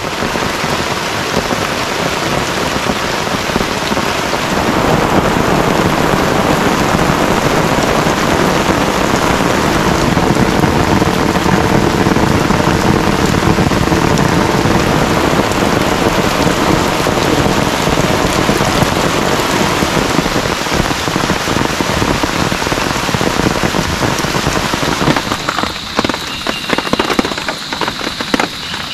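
Heavy rain pouring steadily. Near the end it thins into separate pattering drops and a faint high steady tone comes in.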